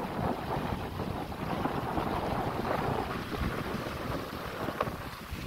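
Wind buffeting the microphone over the rush and splash of water along the hull of a sailboat under sail, with one short, sharper sound near the end.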